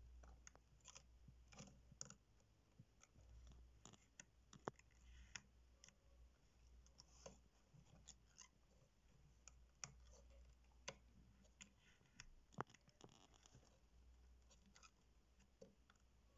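Faint, irregular small clicks and scratches from hands working the rigging thread around the wooden belaying pins of a model ship, over a faint low hum.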